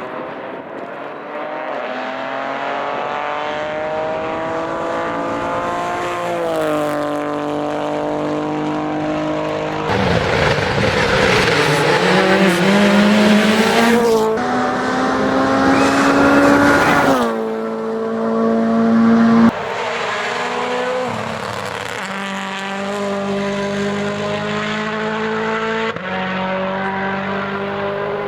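Rally car engines (turbocharged four-cylinder) at full effort, the note stepping down through downshifts and climbing again on acceleration. The loudest part is a close pass about ten seconds in, lasting roughly seven seconds, with engine and tyre noise together.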